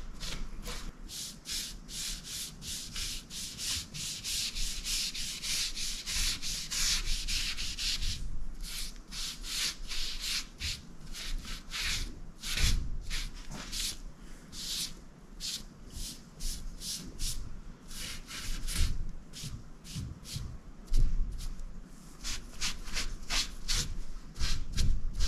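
Paintbrush scrubbing stain onto a wooden door panel: quick, repeated strokes about two a second, brushing over the boards and into the grooves. A couple of louder knocks come near the end.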